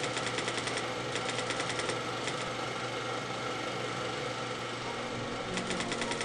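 Typewriter keys clicking in quick runs over a steady mechanical whirr: runs at the start and about one and two seconds in, a pause of about three seconds with only the whirr, then clicking again near the end.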